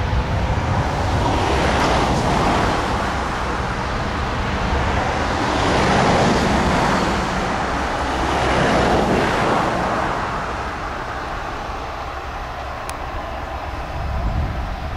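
Ford 6640 tractor's four-cylinder diesel engine running steadily while pulling a rotary tedder across the field, under a rushing noise that swells and fades about three times.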